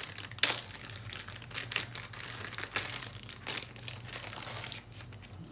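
Product packaging being opened by hand: irregular crinkling and crackling, with a sharp crackle about half a second in.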